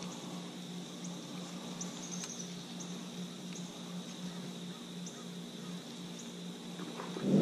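Insects chirping steadily in the pre-dawn, a constant high trill with faint, irregular higher chirps, over a low steady hum. A brief louder sound comes right at the end.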